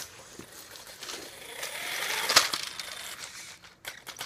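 Handling noise: a swelling rustle with one sharp click about two and a half seconds in, and a few small clicks near the end.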